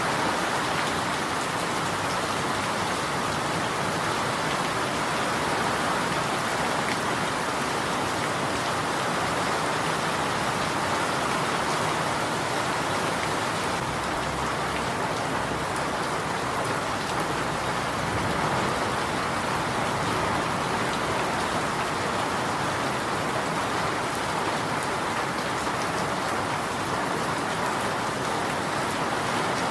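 Steady rain falling on a surface, an even hiss of drops, with a low rumble for a few seconds around the middle.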